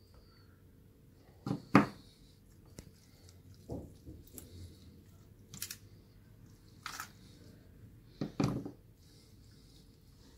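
Boiled sheep head meat being pulled off the bone by hand over a stainless-steel pan: a handful of sharp clinks and knocks of bone and fork against the metal pan, the loudest about two seconds in, with quieter handling sounds between.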